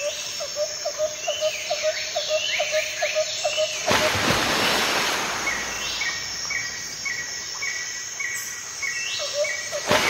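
Forest birdsong: one bird repeats a low note about three to four times a second, while others give falling chirps and a higher note repeated about twice a second. A brief rush of noise comes about four seconds in.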